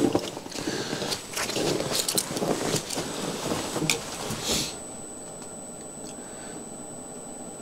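Irregular knocks, rattles and rustles of something being handled for the first four to five seconds, then a quieter steady hum.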